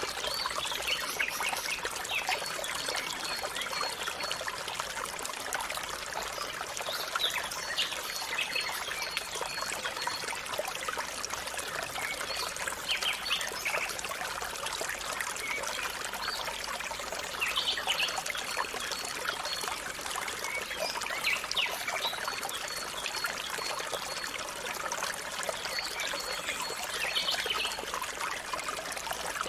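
Water pouring and trickling steadily from a bamboo pipe, with birds calling over it; a high, rapidly repeated note comes and goes several times.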